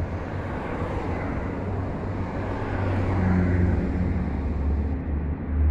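Low, steady rumble of a motor vehicle engine, with a hum that strengthens about three seconds in.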